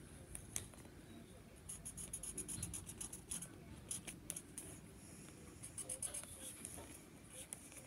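A marker scratching across paper in short, quick strokes that come in bursts. The marker is drying out and barely writes.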